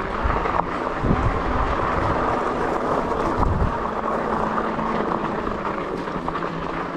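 Steady rush of wind on the microphone mixed with the running noise of a fat-tire electric bike with a 750 W motor climbing a steep gravel trail, its 4-inch tyres rolling over dirt and small stones.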